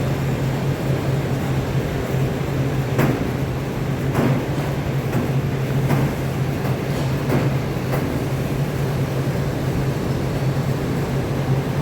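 Steady mechanical hum with a constant low drone, broken by several short knocks or clicks spread through the middle of the sound.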